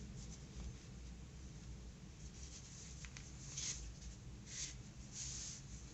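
Faint, soft rustles of a needle and cotton embroidery thread being pulled through a crocheted toy's face. Several short brushing scratches come in the second half.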